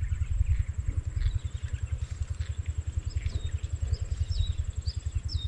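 A steady low rumble with a fast, even pulse runs throughout. From about three seconds in, a bird gives a series of short high calls, each dropping at its end.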